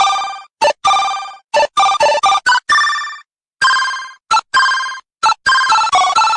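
Electronic sound-effects button playing a ringtone-like jingle of short chiming notes. There are about fifteen quick notes at changing pitches, each starting sharply and fading fast, with silent gaps between them.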